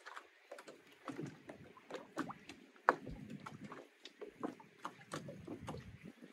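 Seawater lapping and slapping irregularly against floats or a hull, with scattered small splashes and knocks; one sharper splash about three seconds in.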